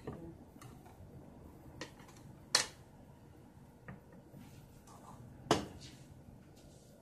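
Kitchenware handled and set down on a counter: a few light knocks, with two sharper clicks about two and a half and five and a half seconds in.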